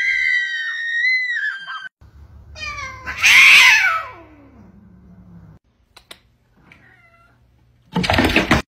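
Cats: a long, high meow held for about two seconds, then a loud, harsh yowl that falls steeply in pitch. Near the end comes a short, loud burst of noise.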